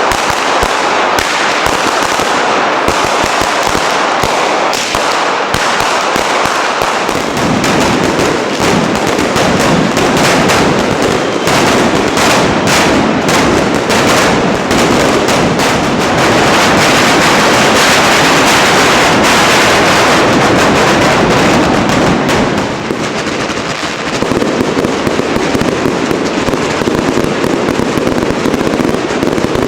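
Fireworks going off in a dense, continuous barrage of rapid cracks and pops, loudest and thickest just past the middle, then easing briefly before picking up again.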